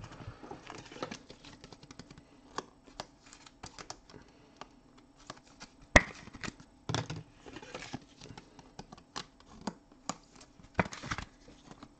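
Trading cards being handled on a tabletop: scattered light clicks, taps and rustles, with one sharp click about six seconds in.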